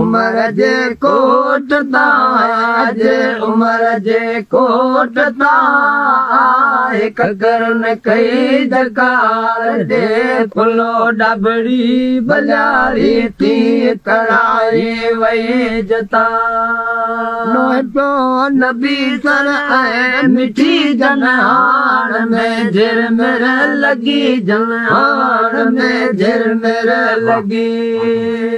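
A Sindhi folk song: a solo voice sings a long, ornamented melody over a steady held drone.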